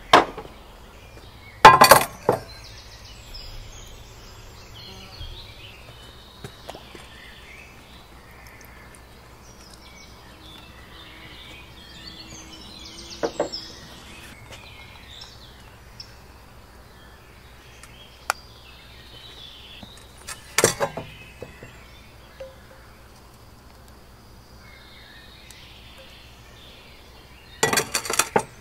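Birds chirping in the background of a garden. Four brief clusters of sharp clicks break in several seconds apart.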